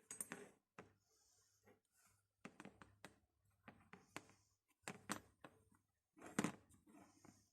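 Faint, scattered taps and knocks of hand tools being handled and set down on a workbench, the loudest about six seconds in.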